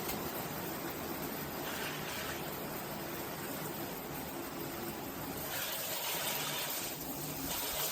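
Water spraying steadily from a handheld shower head, a continuous hiss with a brighter, harder spray for a couple of seconds past the middle.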